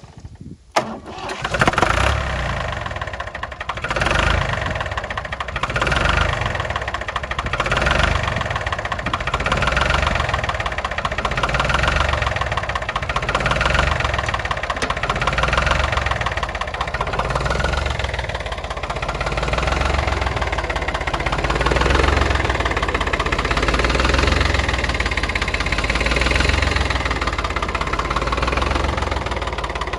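Ferrari 86RS vineyard tractor's diesel engine catching about a second in, then running on at idle, its sound swelling and fading about every two seconds. It is a first start after about a decade of standing unused, and it starts easily.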